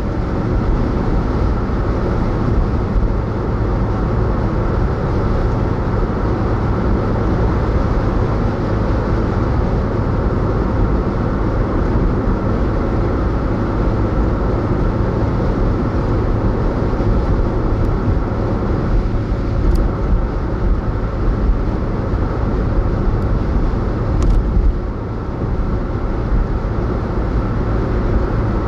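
Car driving at motorway speed: steady tyre and road noise with a low engine hum, with a slight drop in loudness near the end.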